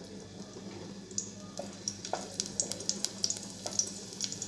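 Garlic cloves frying in a little hot oil in a stainless steel pot: a light sizzle with scattered sharp crackles and pops starting about a second in. A spatula stirs the garlic in the pot near the end.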